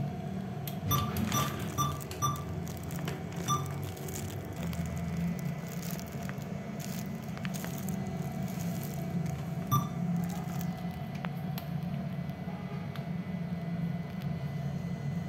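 ATM button beeps as keys are pressed: four short beeps in quick succession about a second in, another at about three and a half seconds and one near ten seconds, over a steady low hum.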